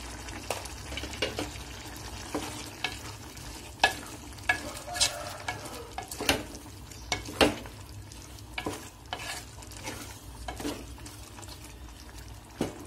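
Wooden spatula stirring a chana dal and tomato curry in a steel pot: irregular scrapes and knocks against the pot over a steady sizzle from the cooking curry.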